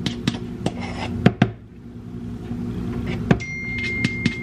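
Table knife scraping and tapping on a measuring cup while levelling scoops of flour: irregular sharp clicks and taps over a low steady hum. A steady high tone comes in about three seconds in.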